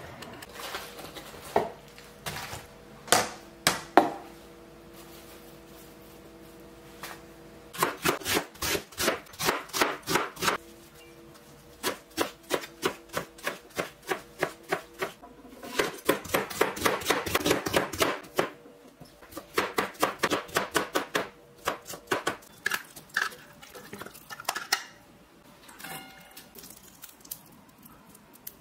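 Kitchen knife chopping vegetables on a cutting board: a few separate knocks, then several quick runs of strokes, several a second, with short pauses between the runs.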